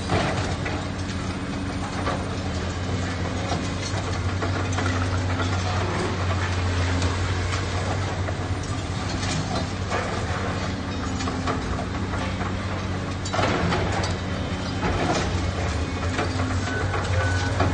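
Komatsu long-front demolition excavator's diesel engine running steadily under load while its claw tears into the building, with constant crunching and rattling of breaking concrete and falling debris. The debris noise grows louder about 13 and 15 seconds in, and a short repeating beep sounds near the end.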